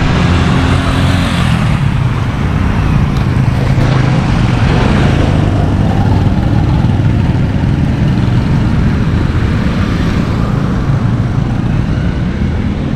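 Road traffic: motor vehicle engines running close by, with a low steady hum and several swells of noise as vehicles pass.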